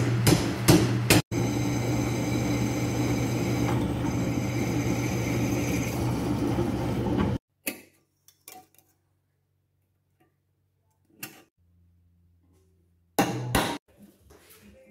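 Beaudry No. 5 power hammer striking hot iron at about three blows a second, stopping about a second in. Then a steady machine roar with a low hum for about six seconds that cuts off suddenly, a few faint taps in near quiet, and a couple of loud metal clanks near the end.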